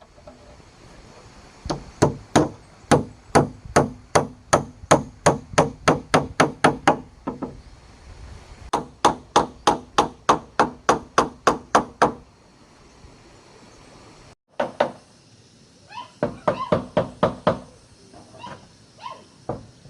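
Repeated sharp striking blows at about three a second, in two runs of several seconds with a short pause between, followed after a break by a few irregular knocks and clatter.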